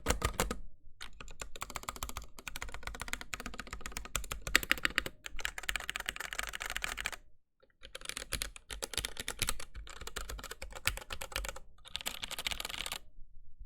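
Rapid, continuous typing on a full-size mechanical keyboard for a sound test, a dense run of key clacks that pauses briefly about halfway through.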